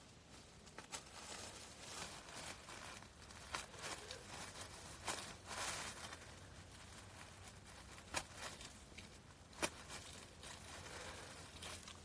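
Faint scraping, rustling and small clicks of a pocket knife cutting and cleaning the base of a freshly picked wild mushroom, with hands handling it over dry fallen leaves. The sounds come in short scattered bits rather than a steady run.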